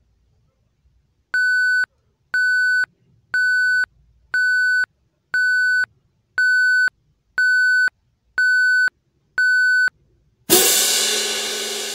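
Countdown-timer sound effect: nine steady electronic beeps, one a second, each about half a second long. When time is up, a loud crash rings out and fades over about two seconds.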